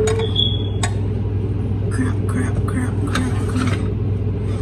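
A knife clicking and scraping against a glass baking dish while cutting burritos: two sharp clicks with a short squeal between them near the start. A steady low hum runs underneath, and a faint voice is heard about halfway through.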